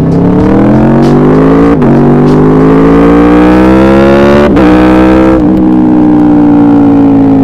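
Aprilia RSV4 RF's V4 engine through a carbon Akrapovic slip-on exhaust, heard on board, accelerating hard with its pitch climbing through the gears. Two quick upshifts cut in, about two and four and a half seconds in, after which the note settles and falls slightly.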